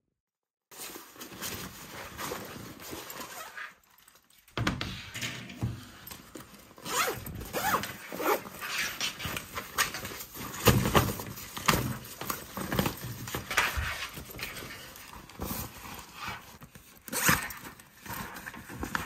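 Hands handling a fabric children's backpack: irregular rustling, rubbing and scraping of the fabric body and padded shoulder straps. It starts after a brief dead silence and has a short lull about four seconds in.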